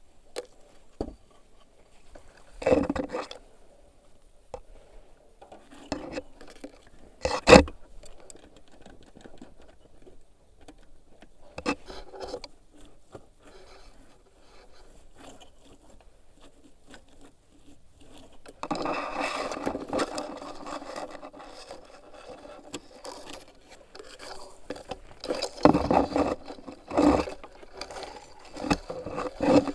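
Irregular scraping and knocking from hand work on parts, with a longer stretch of scraping a little past halfway and a run of sharp knocks near the end.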